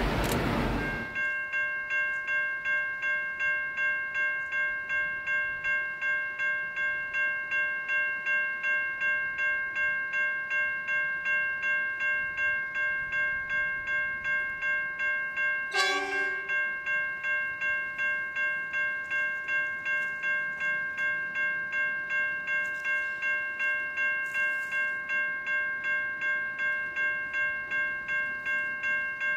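Level crossing warning bell ringing on and on, about two strokes a second. About halfway through, a train horn gives one short blast. A rush of noise in the first second is cut off abruptly.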